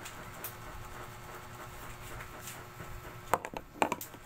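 Quiet room hiss, then a quick cluster of four or five sharp clicks and knocks about three and a half seconds in, like small objects being handled or set down.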